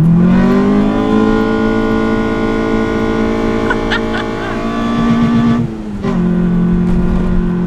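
Mitsubishi Lancer's 4G15 four-cylinder engine accelerating hard, its intake noise loud through an open pod air filter. The pitch climbs steeply at the start, holds high and keeps rising slowly, then drops sharply about five and a half seconds in, as at a gear change, and runs steady at the lower pitch.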